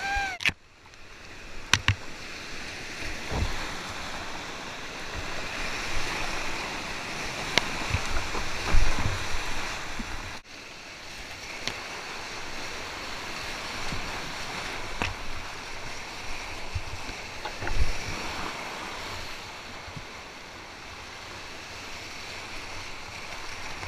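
Rushing whitewater of a flooded creek heard close from a kayak, a steady roar of rapids with occasional dull thumps from water and paddle hitting the boat, and wind on the microphone.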